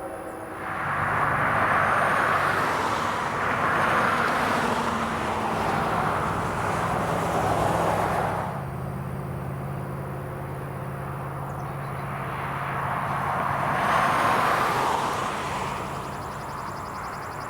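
Diesel locomotives of a freight train passing, engines running with a steady low drone under a loud rushing noise that swells about a second in, eases after about eight seconds and swells again near the end.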